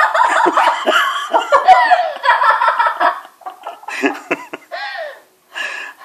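Laughter: a long unbroken run of it over the first three seconds, then shorter laughs that break off about five seconds in.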